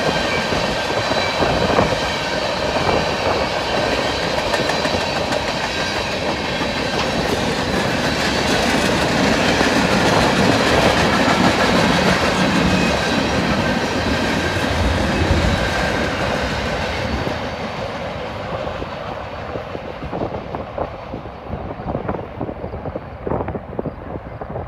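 Union Pacific freight train cars rolling past on the rails, a steady clatter of wheels over rail joints. Over the last several seconds the sound fades and dulls as the end of the train passes and moves away.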